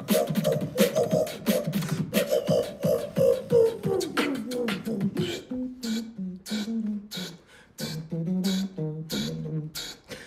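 Human beatboxing: rapid mouth-percussion kicks, snares and clicks under a hummed melody line. About halfway through the melody drops lower and the hits thin out.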